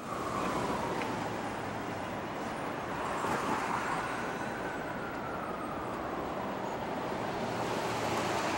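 City street traffic: a steady noise of cars driving past, with a faint whine that slides slowly down, rises, then falls again.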